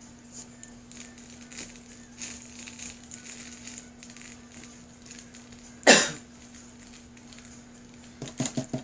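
Cup turner's motor humming steadily as it turns the tumbler, with faint light rustles of glitter being handled and sprinkled. One loud sharp noise about six seconds in. A quick run of rattles near the end as a glitter jar is picked up.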